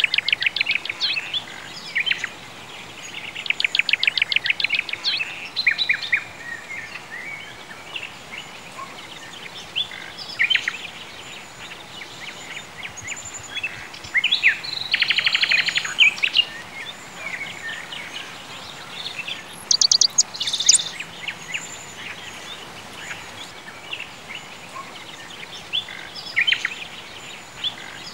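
Songbirds singing: runs of rapid high trills recur every few seconds, with scattered single chirps between them, over a faint steady hiss.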